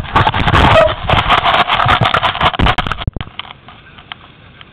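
Loud crunching and scraping of movement over rocky gravel ground close to the microphone, made up of many short clicks and scrapes. It stops abruptly about three seconds in, leaving only faint scattered clicks.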